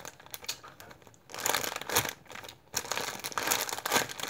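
Clear plastic packaging bag crinkling in irregular bursts as it is handled in the hands.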